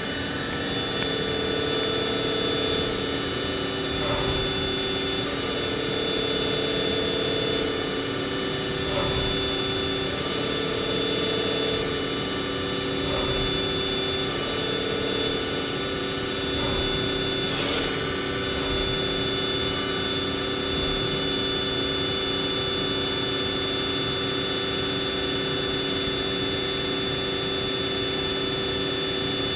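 Haas CNC mill cutting a mill-turn operation, with a steady, high-pitched spindle whine. A lower hum switches on and off every two seconds or so during the first half as the cutting passes change.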